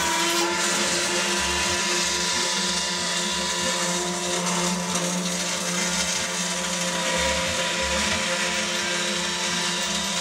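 DK 370 automatic mitre circular cold saw running with a steady mechanical noise.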